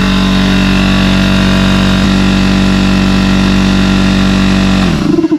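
McGraw 21-gallon oil-free vertical air compressor running loud and steady on its first power-up, its pump working; near the end it shuts off and winds down quickly with a falling pitch.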